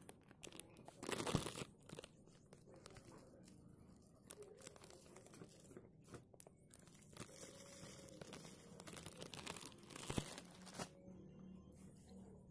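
Plastic bag crinkling and rustling as slate pencil powder is shaken out of it onto a plate, in irregular bursts, the loudest about a second in.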